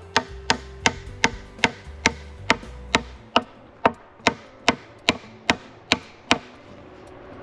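Wood being struck over and over with a tool, sharp knocks about two and a half a second that pause briefly near the end. Faint background music underneath.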